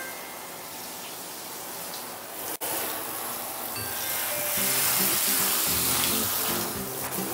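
Handheld shower head spraying water onto a cat's wet fur: a steady hiss that grows louder a little past halfway, over background music.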